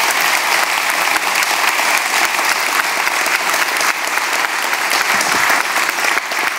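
Audience applauding steadily after a talk, many hands clapping together.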